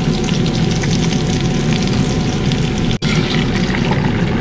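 Steady, dense crackling and hissing, with a sudden cut about three seconds in.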